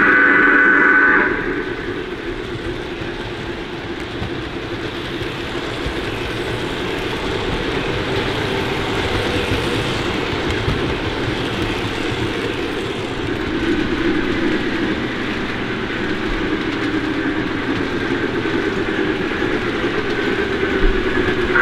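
Lionel O-scale C&O F-19 Pacific model steam locomotive's onboard sound system: a steam whistle blowing that stops about a second in and sounds again near the end. Between the two blasts is the locomotive's steady running sound, with its wheels rolling on the track.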